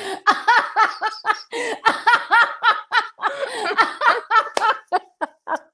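Two women laughing loudly together, a long run of quick ha-ha pulses with no words.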